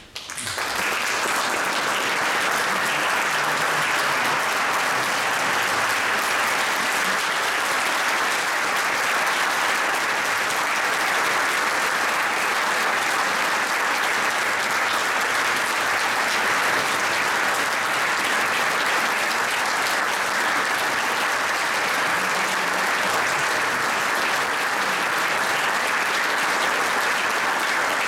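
Concert hall audience applauding, breaking out suddenly and holding steady and dense.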